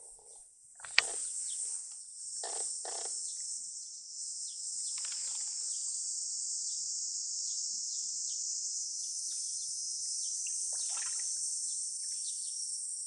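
Steady high-pitched chorus of insects. A single sharp click about a second in, and a few short, soft noises over it.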